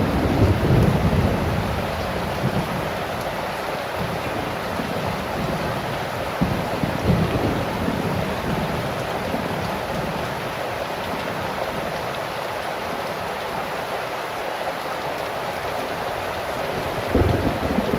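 Heavy rain falling steadily, with low rumbles of wind or thunder swelling up about a second in, again midway and once more near the end.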